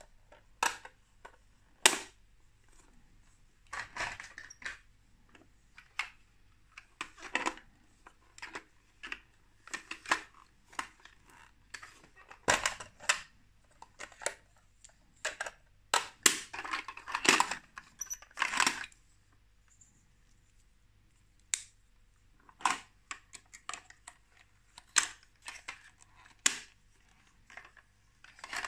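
Plastic Lego Duplo bricks and toy trucks clicking, knocking and rattling as they are handled and set against a plastic crate: irregular short clacks, some in quick clusters, with a brief lull about two-thirds of the way in.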